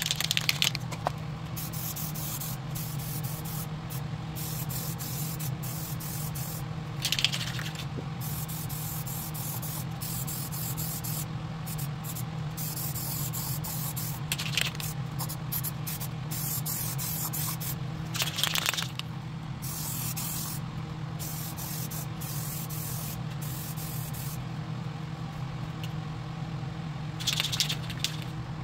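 Aerosol spray paint can hissing as it coats welded steel truck frames, in long sprays broken by short pauses, over a steady low hum.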